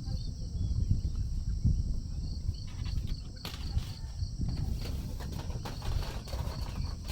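Outdoor mountain morning ambience: a low, uneven rumble of wind on the microphone, under a high insect chirping that repeats at about five chirps a second. The chirping stops for the first couple of seconds, then returns. Scratchy rustling comes in over the second half.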